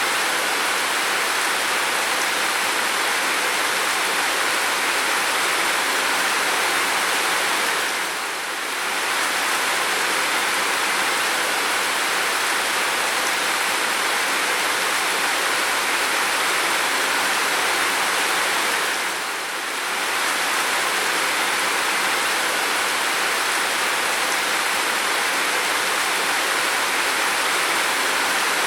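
Heavy rain falling in a steady, dense hiss, easing off briefly twice.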